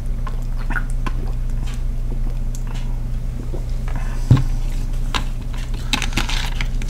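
Scattered light clicks and knocks of things being handled, with one louder thump about four seconds in, over a steady low hum.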